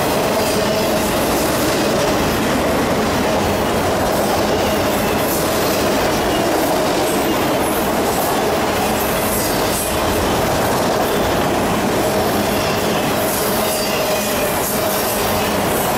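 Freight train of autorack cars rolling past: a steady, loud rumble and clatter of steel wheels on the rails, with a faint wavering whine running through it.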